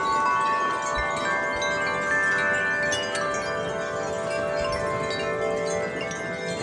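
Several wind chimes ringing in the wind, many tuned tones struck over and over and overlapping as they sustain.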